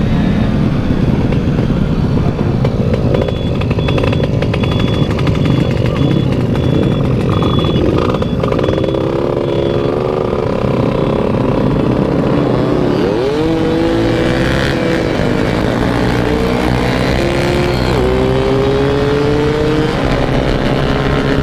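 Motorcycle engine running on the move under heavy wind noise. In the second half the engine pitch climbs, falls back and climbs again several times as the bike accelerates.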